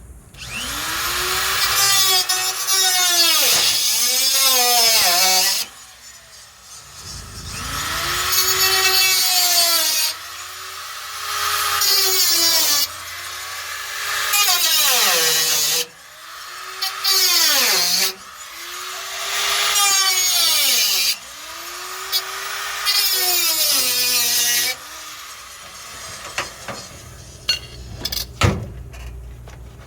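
Handheld power cutting tool cutting through the sheet steel of a truck door. It runs in about six bursts of two to three seconds, each time speeding up, cutting and winding down. A few sharp knocks come near the end.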